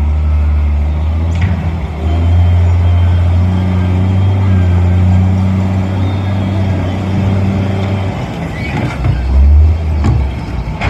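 Heavy truck's diesel engine running with a steady low drone, shifting slightly in pitch and level near the end.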